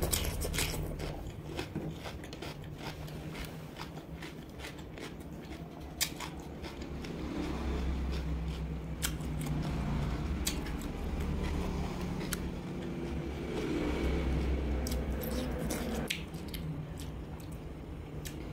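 Close-miked eating: crisp crunches of a cucumber stick being bitten, then chewing with many short wet mouth clicks, over a low steady hum.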